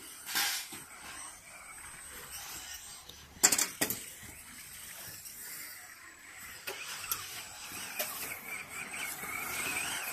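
Electric 1:10-scale RC rally car driving on a hard court surface: a high motor whine grows louder from about six seconds in. A quick run of sharp clacks a little after three seconds in is the loudest sound.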